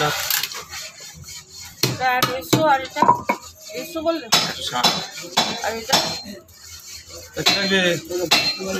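Knocks and metallic clinks as pieces of katla fish are sliced on an upright boti blade fixed in a wooden block, with voices talking in between.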